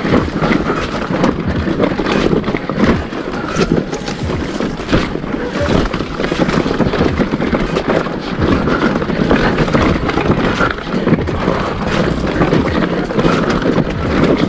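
A bike riding down a rough, rocky trail: steady rushing noise on the microphone with frequent knocks and rattles as it jolts over the ground.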